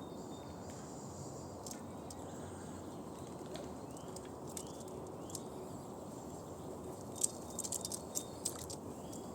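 Squirrel gnawing a hazelnut shell: scattered sharp clicks and cracks of teeth on shell, with a quick run of louder cracks near the end. Small birds give short chirps in the background.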